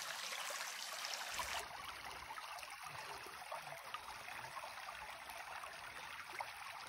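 Shallow stream running over stones: a steady rushing and trickling of water.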